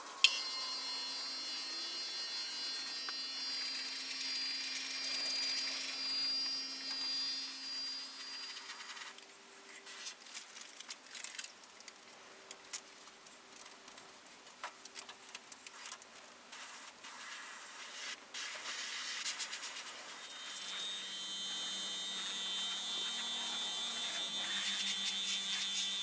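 Airbrush spraying in spells: a steady hiss of air with a thin high whistle, stopping for several seconds in the middle, where there are only small clicks and rustles, and starting again near the end. A low hum runs underneath.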